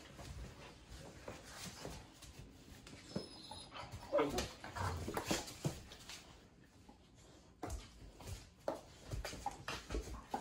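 Young dogs play-wrestling on a hard floor: scuffling, bumps and claws tapping, with whining and yelping calls from the dogs, loudest around the middle.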